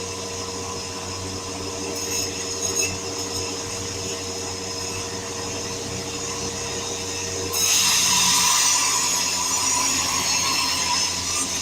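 Sawmill machinery running with a steady hum; about two thirds of the way through, a saw blade bites into wood with a louder, high-pitched cutting sound that lasts about three seconds and then eases off.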